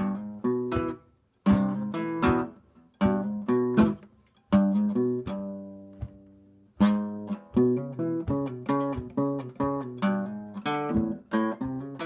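Acoustic guitar blues break: short bursts of strummed chords, then a chord left ringing for about two seconds around the middle, then steady rhythmic strumming at a few strokes a second.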